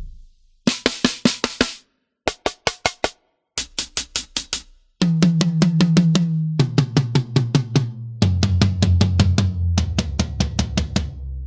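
Sampled drums from the Claustrophobic EZX library for EZdrummer 3, recorded in a heavily dampened room, played in short, fast runs of repeated strikes separated by brief gaps. The first runs are bright snare-like hits. From about the middle, runs of tuned drums follow, stepping lower in pitch twice and ending on the deepest one.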